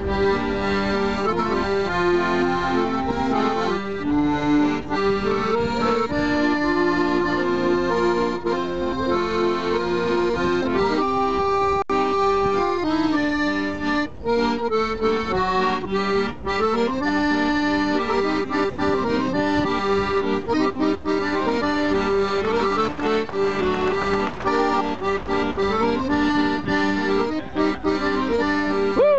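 Piano accordion played solo: a tune over held chords, the notes sustained and changing about every second.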